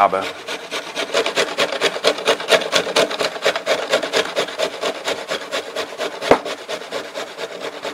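Hard raw quince pieces rasped over a kitchen grater: rapid, even scraping strokes, about five a second. One sharper knock about six seconds in.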